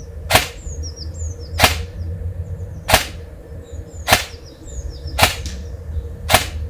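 Custom AR-15-style airsoft AEG firing single shots at an even pace, six short sharp shots about a second and a quarter apart.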